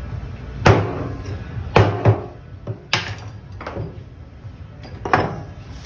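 A large knife chopping through a moray eel onto a plastic cutting board: about six sharp, irregular knocks, the loudest about a second and two seconds in.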